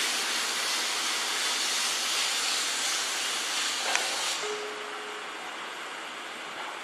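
Steam locomotive C61 20 letting off a loud hiss of steam that cuts off suddenly about four seconds in, leaving a quieter hiss.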